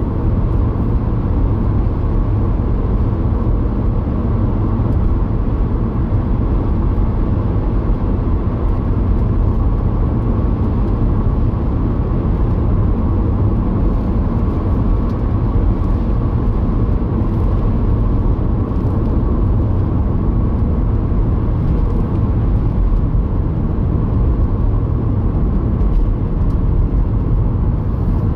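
Steady road and engine noise inside a car cruising at about 50 mph, a constant low rumble with no change in speed or pitch.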